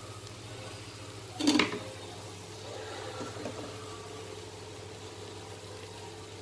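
Cooked basmati rice being tipped into a pan, with a brief clatter of a utensil against the pan about one and a half seconds in, over a steady low hum.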